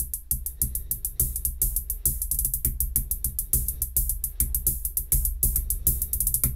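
Hi-hat samples finger-drummed on an Ableton Push 3's pads with alternating hands: a fast, uneven stream of about eight to ten ticks a second, with accents from the harder strikes, over a steady low bass.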